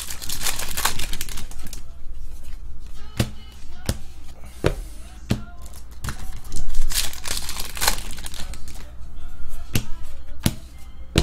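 Foil wrapper of a hockey card pack crinkling and tearing open, and a stack of cards being flicked through by hand, with several sharp clicks in the middle and near the end.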